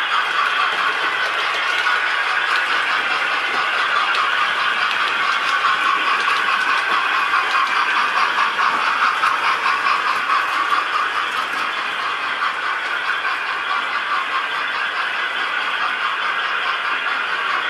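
Model railway train running along the track: the locomotive's small electric motor whirring and the wheels rattling on the rails, steady throughout with fast, even clicking.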